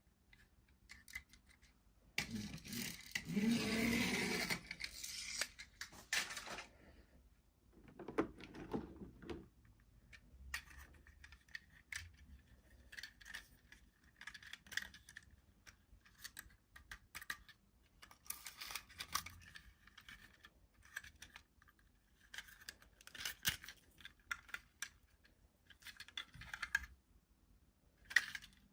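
Toy packaging and small plastic toy pieces being handled, making a run of light clicks, taps and rattles. A louder noisy rustle lasts several seconds about two seconds in, and a shorter one follows a few seconds later.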